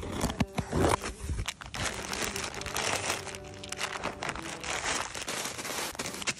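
Scissors cutting open a plastic package, then clear plastic bags full of clay beads crinkling and rustling as they are handled, with a dense, irregular crackle throughout.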